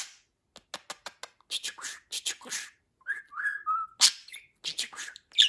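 Budgerigar chattering: a run of quick clicks and short scratchy notes, with a wavering whistle about three seconds in and a sharp click about a second later.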